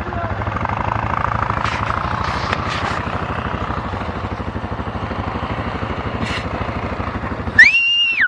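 A quad bike's engine idles close by with a steady low putter. Near the end a person lets out a loud, high-pitched scream.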